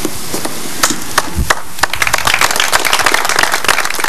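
Audience applauding: a few scattered claps about a second in, then steady applause from about two seconds in. There is a dull low thump about a second and a half in.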